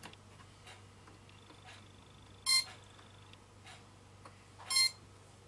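Electronic beeps from a radio-control setup with brushless motor ESCs: two short, loud, shrill beeps about two seconds apart, with a faint steady high tone and faint ticks between them.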